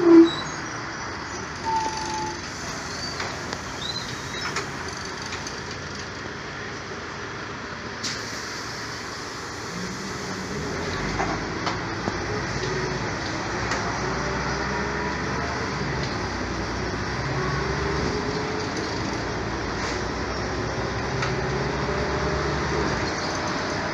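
Riding inside a city bus: steady road and running noise, with a brief loud squeal right at the start. From about ten seconds in, a motor tone rises slowly and the noise grows as the bus gathers speed.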